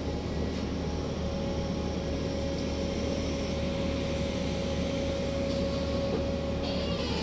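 Steady machinery drone of a harbour crane's large clamshell grab unloading bulk cargo into a hopper, with a low hum and a steady whining tone. A rushing hiss rises near the end.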